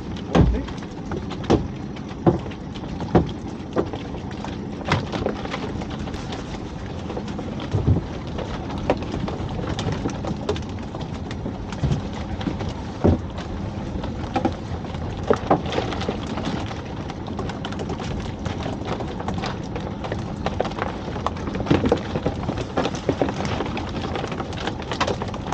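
Freshly caught mackerel being swung aboard and flapping in the bottom of a small open fishing boat, making irregular knocks and patters against the hull and gear, over a steady bed of wind and sea noise.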